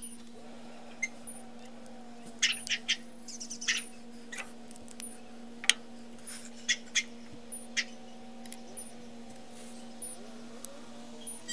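Leatherman multitool parts being handled and fitted together: a scatter of sharp little metal clicks and taps, thickest in the middle, over a steady low hum.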